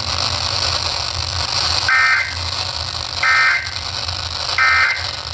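Three short bursts of Emergency Alert System digital data, a two-tone warble, about a second apart over steady radio hiss and hum: the SAME end-of-message code that closes the warning.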